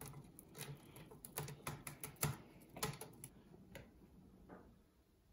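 Faint, irregular clicks and taps, a dozen or so over about four seconds, as a cat scrambles about a plush cat tree and steps down onto the carpet.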